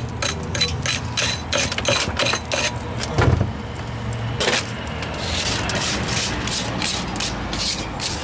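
Hand wire brush scrubbing a rough concrete block chimney in quick back-and-forth strokes, about five or six a second, clearing loose mortar and grit before patching. A knock comes about three seconds in, and after that the strokes become slower and more spread out.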